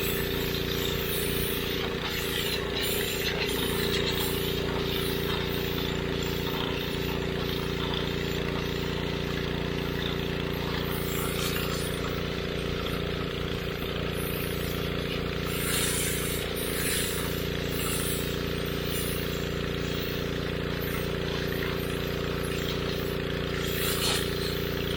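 Pressure washer running steadily, its spray hissing in passes that come and go as the jet is worked over a mildewed stone headstone.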